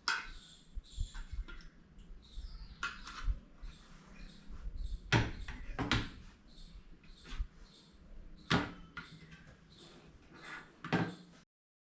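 Irregular knocks and clatter from handling camping cookware by a gas stove, with a few sharper metallic knocks. The sound cuts off abruptly near the end.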